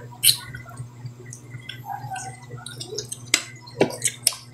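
Scattered clicks and smacks of people eating a meal, with several in quick succession near the end, over a steady low hum.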